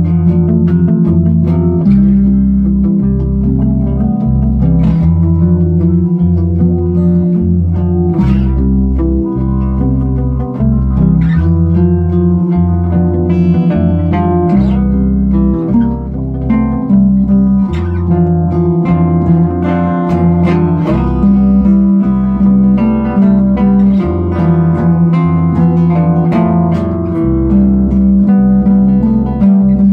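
Guitars playing a song together over a steady, rhythmic bass line.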